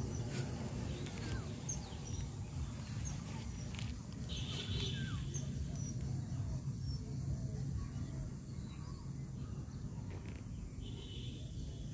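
Birds chirping now and then over a low steady rumble.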